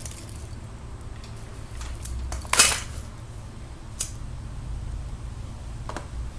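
Small handling noises: a few short clicks and knocks, the loudest about two and a half seconds in, over a low steady hum.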